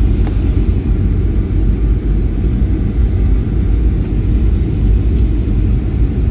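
Steady low rumble of engine and airflow noise inside an airplane cabin as it descends on approach to landing.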